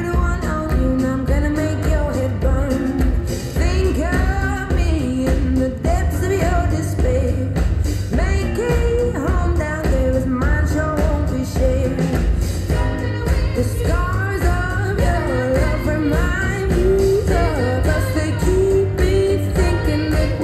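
A pop/rock song with a sung vocal and a heavy, steady bass beat, played through Kicker car speakers and two Kicker CVR 12-inch subwoofers driven by a Rockville RXA-F1 four-channel amplifier.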